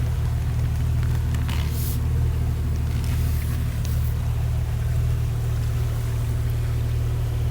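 A vehicle engine running steadily with a low rumble, with a few brief scraping or rustling noises in the first half.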